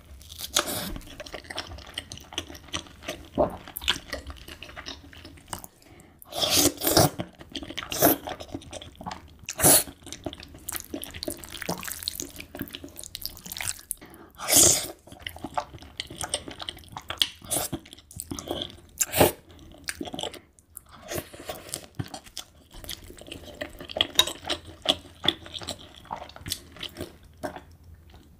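Close-miked eating sounds: wet chewing, smacking and slurping of creamy Alfredo spaghetti and garlic bread, in irregular bursts with a few louder wet slurps. Near the end comes a sip of an iced drink.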